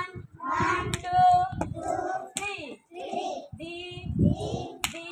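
Young girls singing a song together, with a few sharp hand claps along with it.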